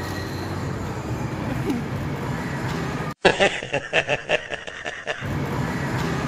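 Steady hum and general noise of an amusement arcade. About three seconds in, the sound cuts out and an inserted clip of an old man laughing heartily plays for about two seconds, in quick rhythmic bursts, before the arcade noise returns.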